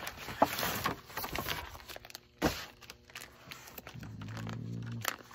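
Crinkling and rustling of packaging being handled, with irregular small clicks and one sharper knock about two and a half seconds in.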